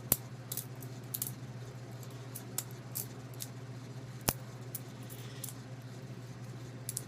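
Benchmade butterfly knife being flipped: irregular sharp metallic clicks and clacks as the handles swing round and strike each other and the blade's tang, one louder clack about four seconds in.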